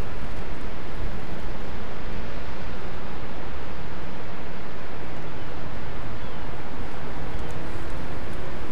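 Steady wind buffeting the microphone: an even, unbroken noise, heaviest in the low end.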